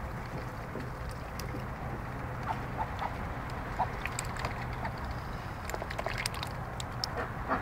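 Domestic ducks drinking and dabbling at a water tub: small clicks and splashes of bills in the water, with a few short, soft calls around the middle and near the end, over a steady low hum.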